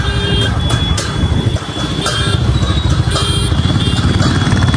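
Motor vehicle engines running close by, with a few short horn beeps over the steady engine noise.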